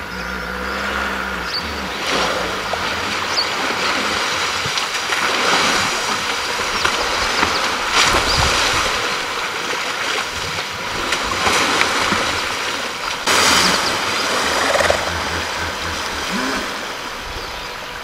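African elephants wallowing in a shallow river: water splashing and sloshing in uneven surges as they roll and wade.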